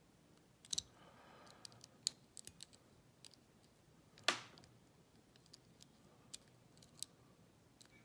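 Faint metallic clicks and ticks of a steel hook pick working the pins of a Master Lock four-pin gun lock held under a tension wrench, while single pins are being set. One louder, sharper click comes about four seconds in.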